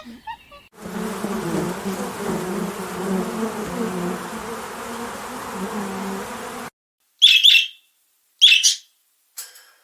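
A buzzing insect: a steady, wavering hum that cuts off suddenly after about six seconds. Then come a few short, high bird chirps about a second apart.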